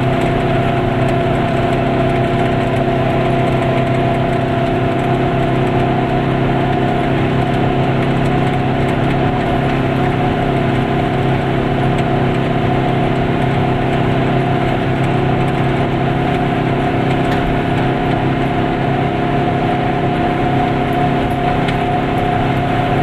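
Goggomobil's small air-cooled two-stroke twin engine running steadily under way at an even speed, with road noise.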